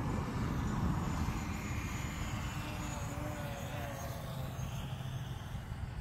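DJI Mavic Pro quadcopter on its original 8330 folding propellers flying a sport-mode pass, its propeller hum slowly fading as it moves away.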